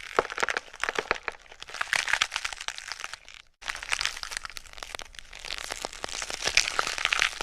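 Crunching, crackling sound effect: a dense run of irregular cracks and crackles, broken by a brief gap about three and a half seconds in.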